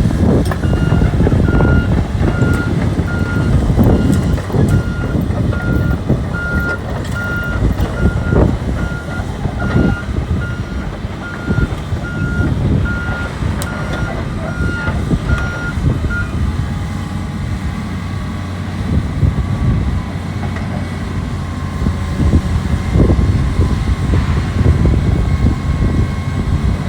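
Excavator's diesel engine running under load, with scattered clanks and knocks from the working machine. A motion alarm beeps steadily about once a second, then stops a little past halfway.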